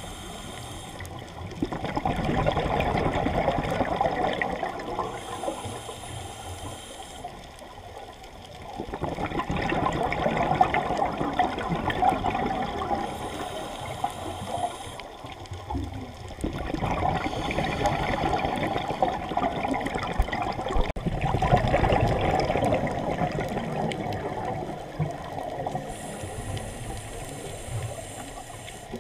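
Scuba breathing through a regulator heard underwater: loud rumbling bursts of exhaled bubbles, each a few seconds long, alternating with the quieter hiss of the regulator on the inhale, in slow repeated breaths.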